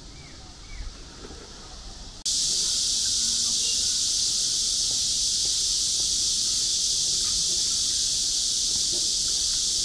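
A loud, steady high-pitched hiss that starts abruptly about two seconds in and holds unchanged; before it, only faint background ambience.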